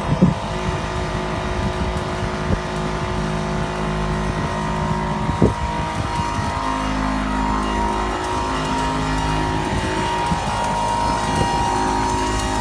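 Stick-welding arc from a 3.2 mm 7016 low-hydrogen electrode burning at 130 A on 425 Hz AC from the Mighty Midget welder: a steady high-pitched hum with a few sharp pops.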